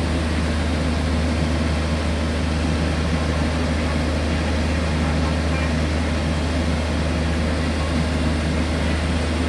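Diesel engine of a Sumitomo crawler drilling rig running steadily, a deep even drone with no change in speed.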